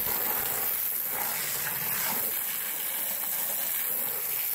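Water from a garden hose spray nozzle jetting onto the mud-caked underside of a side-by-side, giving a steady hiss of spray splashing off mud and plastic.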